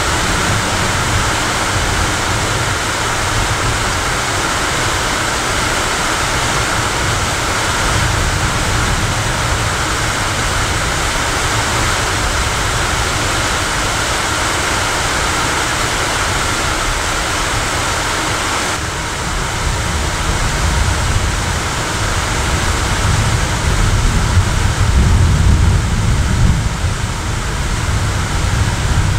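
Steady hiss of heavy rain falling. About two-thirds of the way through, a low rumble of thunder builds and swells, loudest near the end.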